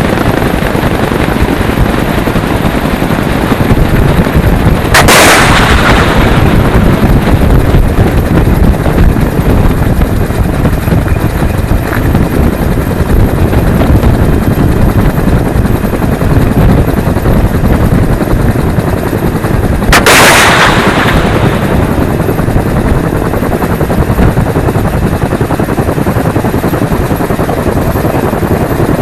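Sustained heavy automatic gunfire, dense and continuous, with two sharp louder blasts that fade over about a second, one about five seconds in and another about fifteen seconds later.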